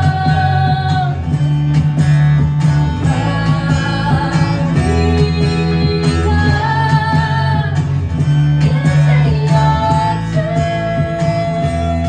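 Live music: a woman singing lead over a strummed acoustic guitar, holding long notes.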